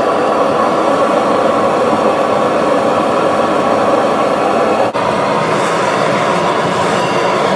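Propane forge burner running with a steady rushing noise, breaking for an instant about five seconds in and going on a little brighter after it.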